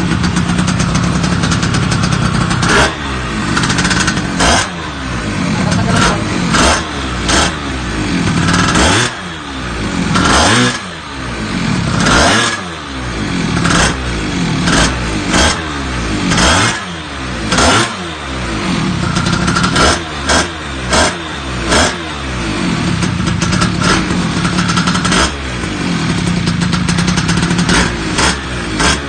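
Yamaha Jog 50/70cc two-stroke scooter engine through an aftermarket expansion-chamber 'power pipe' exhaust, idling and blipped repeatedly: each rev jumps up sharply and its pitch falls back to idle.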